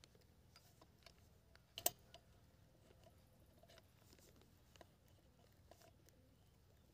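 Faint clicks and scrapes of a small screwdriver tightening a wire terminal screw on a contactor's magnet coil, with one sharper click about two seconds in.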